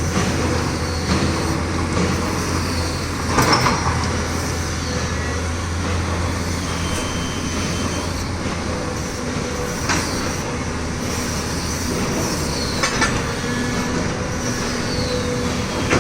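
Heavy construction machinery running steadily with a low engine drone, broken by a few sharp metallic clanks: the loudest about three and a half seconds in, others near ten and thirteen seconds in.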